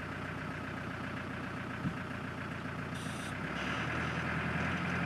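Four-wheel-drive vehicle engine running steadily under load while towing a Land Rover out of deep mud. The engine note grows a little louder and heavier about three and a half seconds in, just after a brief hiss.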